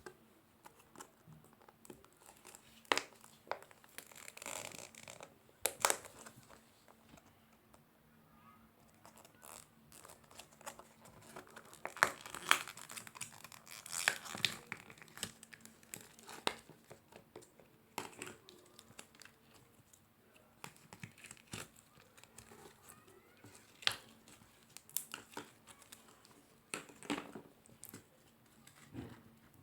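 Slime being squished, stretched and poked by hand: irregular sticky crackles, pops and clicks, with a denser stretch of crackling about halfway through.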